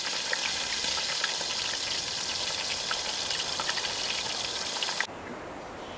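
Steady sizzling hiss with scattered small crackles from a cast-iron camp oven cooking in campfire coals. It cuts off suddenly about five seconds in.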